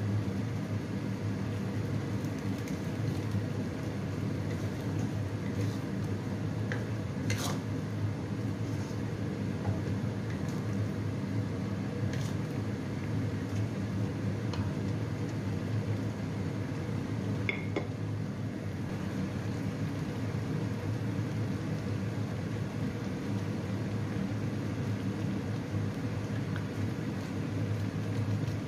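A steady low rushing noise from a gas hob with a wok of coconut-milk stew simmering on it. A few light clicks of a spatula against the wok come through about seven, twelve and eighteen seconds in.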